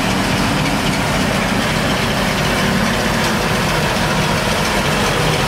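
A steady engine-like drone with a constant low hum, running without change.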